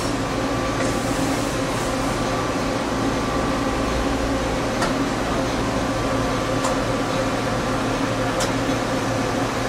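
Steady mechanical hum of a powered-up Cincinnati-Milacron 18C CNC turning center standing at idle with its spindle stopped, carrying a constant whine. A few faint ticks come through about a second and three quarters apart.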